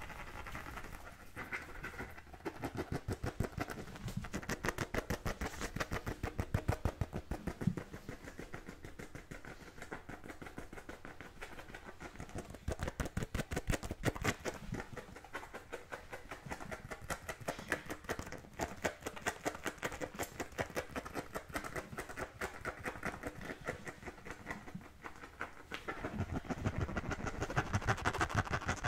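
Fingernails scratching over the surface of an American football in quick runs of fast strokes, with short pauses between the runs.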